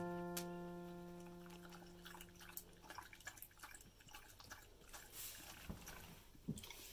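A dog lapping water from a bowl: faint, irregular wet clicks. A chime note fades out over the first few seconds.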